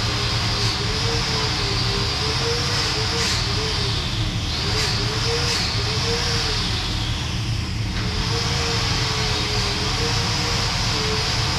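Steady droning machine noise with a hum that slowly wavers in pitch, and a few faint knocks a few seconds in.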